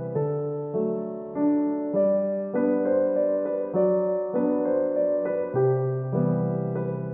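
Background piano music: a gentle, slow tune with a new note or chord struck about every half second.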